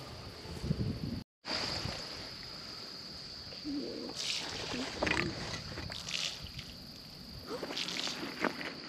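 Insects trilling steadily on one high, unbroken note, with a few short, faint calls or rustles over it.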